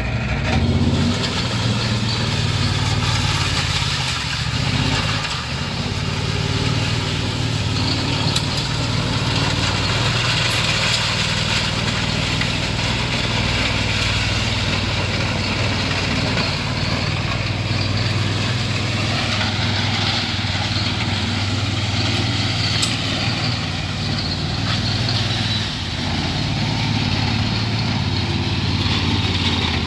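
Honda GX690 V-twin engine of a ride-on power trowel running steadily as the machine is driven across the concrete. The level dips briefly about five seconds in and again near the end.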